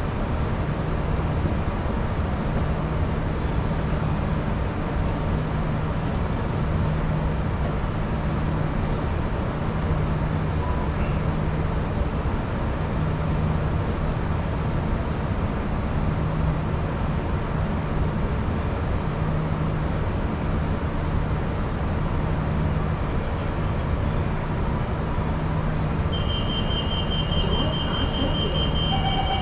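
MRT train standing at a platform with its doors open: a steady hum with a low drone that pulses on and off about every two seconds. Near the end a rapid high beeping starts, the door-closing warning before the doors slide shut.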